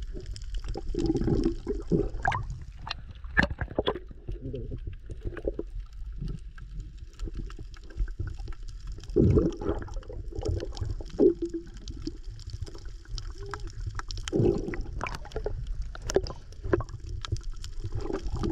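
Water heard by a camera held underwater: muffled sloshing and gurgling bubbles over a low rumble, with a few stronger gurgles and many scattered sharp clicks.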